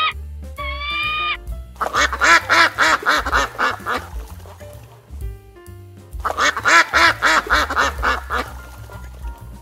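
A duck quacking in quick runs of calls, about five a second, in two bouts of about two seconds each: one about two seconds in and one about six seconds in. Soft background music runs underneath.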